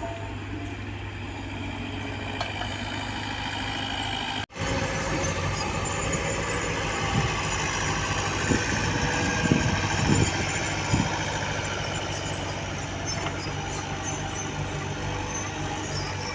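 Diesel engine of heavy earthmoving machinery running steadily, cutting out for an instant about four and a half seconds in. After that it runs a little louder, with a few knocks between about seven and eleven seconds in.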